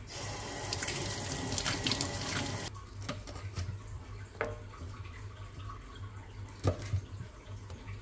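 Water running from a tap for a little under three seconds, then shut off abruptly, followed by a few light knocks and drips.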